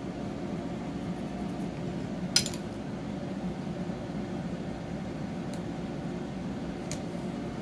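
Steady low mechanical hum from a room appliance, with one sharp click about two and a half seconds in and a fainter click near the end.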